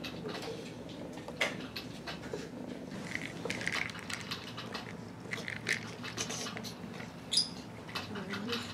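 A cat pawing and mouthing a plastic treat-dispensing mouse toy on carpet: scattered clicks and short rattles of the dry cat treats inside it, with one short high squeak about seven seconds in.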